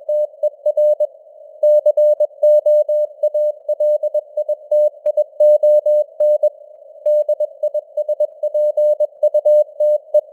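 Morse code (CW) keyed at 21 words per minute: a single beep tone switched on and off in dots and dashes over a narrow band of simulated radio hiss, with two short pauses between words. The keying stops just before the end, leaving only the hiss.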